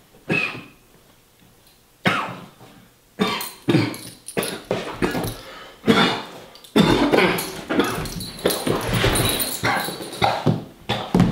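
A man choking: strained gasps, coughs and groans that come in short bursts at first, then thicker and louder from about seven seconds in, as he doubles over and collapses to the floor. It is an acted choking fit in a death scene.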